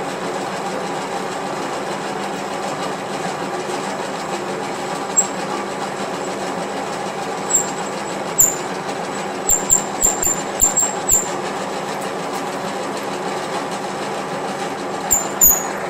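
Metal lathe running steadily while a 1-inch reamer is fed into the bore of the spinning workpiece: a steady hum of motor and gearing. Short sharp clicks come in a cluster from about seven to eleven seconds in, and twice more near the end.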